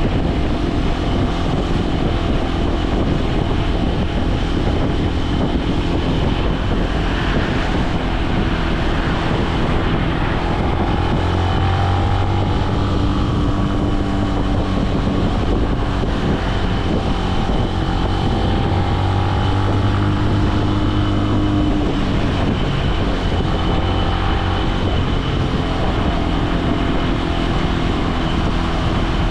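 Benelli BN125's single-cylinder four-stroke engine running while the motorcycle cruises, over wind rush. The engine pitch rises and falls gently as the speed changes.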